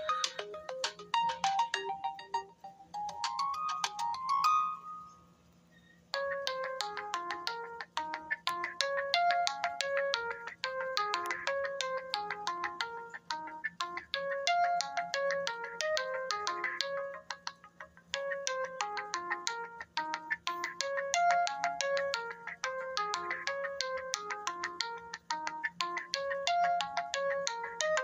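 Oppo A7 smartphone ringtones: one melody of short notes ends about four seconds in with a rising run, and after a brief pause a new ringtone melody starts and repeats its phrase.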